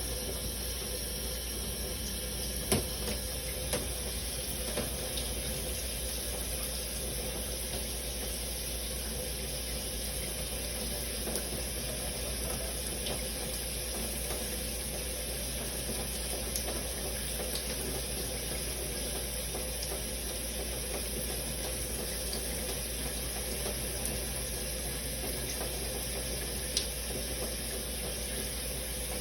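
Shower running steadily, water spraying and splashing, with a few faint drips or taps standing out.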